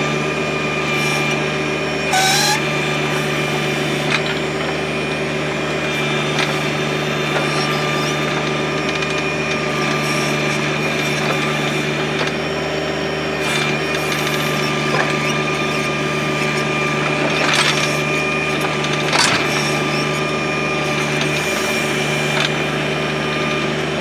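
John Deere 1025R compact tractor's three-cylinder diesel running steadily while working a 260B backhoe, with a thin high steady whine over the engine hum. A few short sharp knocks come through as the bucket digs into hard ground and dumps dirt.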